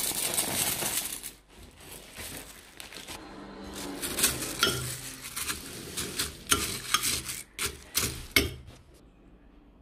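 Cornflakes pouring from a plastic bag into a ceramic cup of milk for about a second. Then a metal spoon stirs the flakes, clinking against the cup in a run of sharp knocks that stops shortly before the end.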